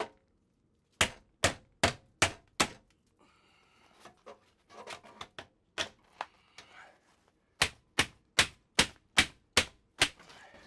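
Claw hammer striking upward at the support holding an old ceiling vent fan housing, knocking it loose. There is a run of five sharp blows, then lighter knocks and rattling, then a run of seven blows at about two and a half a second.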